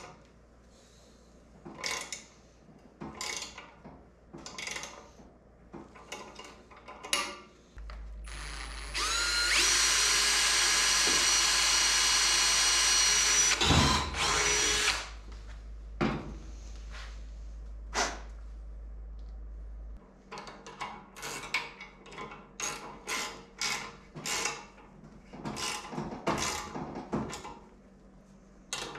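Electric drill drilling a hole in a motorcycle frame for the side-stand mount. The motor spins up with a rising whine about nine seconds in, runs steadily for about six seconds, then stops. Scattered clicks and knocks of tools being handled come before and after it.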